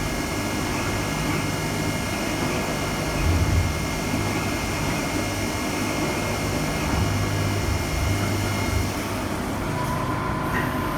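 CNC milling machine running a tapping cycle with a 1/4-20 tap: a steady mechanical hum with a thin high whine. The whine fades near the end and a lower steady tone comes in.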